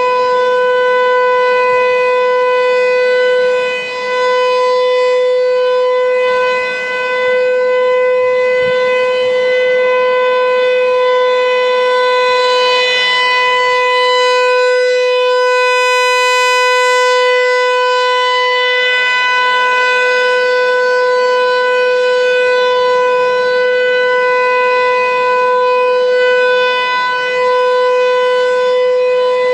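American Signal T-135 electromechanical outdoor warning siren sounding a steady tone during a siren test, holding one loud pitch with no rise or fall.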